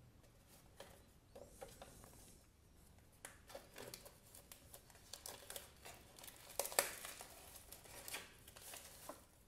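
A paper leaflet rustles, then a clear plastic wrapper crinkles as it is pulled off a small cardboard box, in soft scattered crackles and clicks. The crinkling is densest and loudest about two-thirds of the way through.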